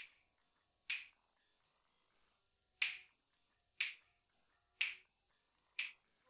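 Finger snaps keeping a slow, even beat, about one a second, with one beat skipped after the first snap.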